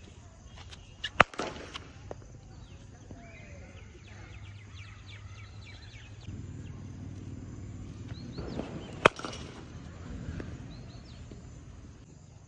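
Cricket bat striking the ball in net practice: two sharp cracks, one about a second in and another about nine seconds in, with birds chirping.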